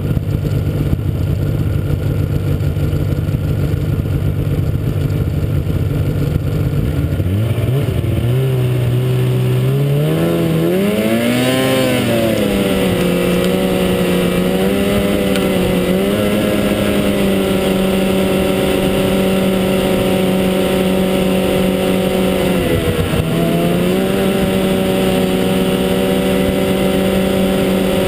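Snowmobile engine carrying the rider along the trail: a low, steady note for the first several seconds, then revving up and wavering before settling into a steady higher cruising pitch, with a brief dip in revs a little past twenty seconds in.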